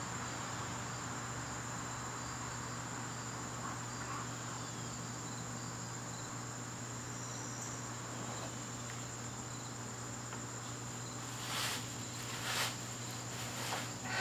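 Garden crickets chirping steadily, a continuous high-pitched trill over a dense chorus. A couple of brief hissy noises come near the end.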